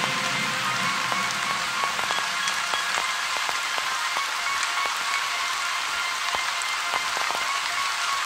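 Steady rain falling on a surface, with scattered individual drop ticks and a few faint held tones underneath.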